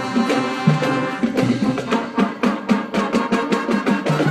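High school marching band playing in rehearsal: wind instruments sounding sustained chords over steady drum strokes.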